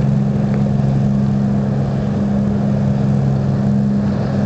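Ship's engine running with a steady low drone: two constant hums under a rumble, with no change in speed.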